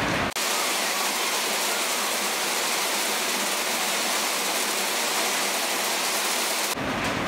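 A steady, even hiss like rain or static, with no low rumble. It cuts in abruptly just after the start and cuts out abruptly near the end.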